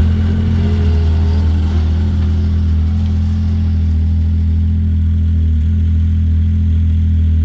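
Snowmobile engine idling steadily at a constant pitch.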